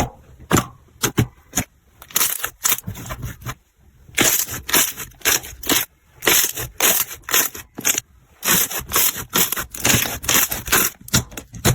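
Slime being squeezed and pressed by hand, giving off rapid crackling and popping clicks: a few scattered pops at first, then dense runs of crackling about four seconds in and again from about eight seconds on.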